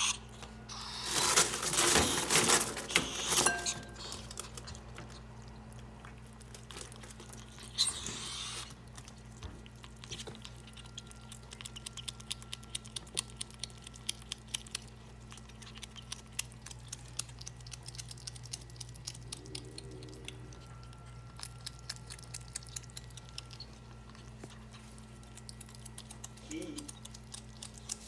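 Ferrets eating raw meat: loud hissing bursts in the first few seconds and again about eight seconds in as they fight over it, then a long run of quick clicking chewing and tearing sounds.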